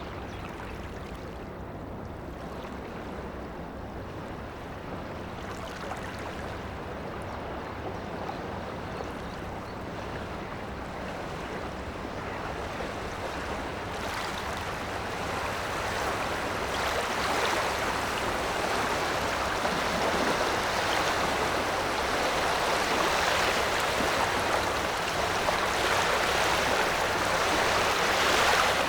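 Waves from a passing ship's wake washing along a river, a steady rushing of water that grows gradually louder and brighter through the second half, over a constant low rumble.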